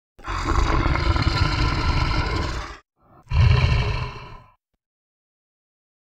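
Lion roaring: a long roar of about two and a half seconds, then a shorter second roar that trails off.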